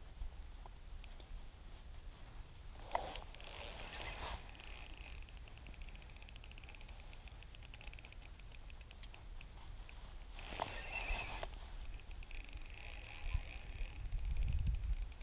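Spinning reel ticking rapidly in stretches, starting about three seconds in, while a big fish is fought on light line.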